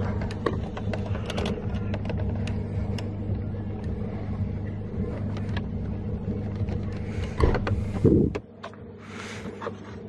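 A steady engine-like hum with light clicks and scrapes of a screwdriver worked into the back of a steering wheel to free the airbag's retaining springs. A couple of louder knocks come near the end, and then the hum stops abruptly.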